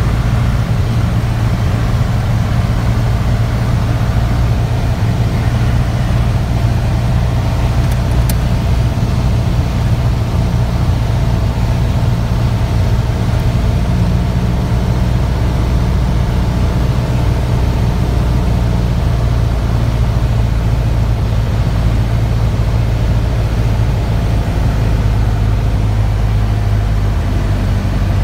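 Light single-engine propeller aircraft's engine and propeller, heard from inside the cockpit, running steadily on final approach. The engine note drops lower near the end as the plane comes over the runway.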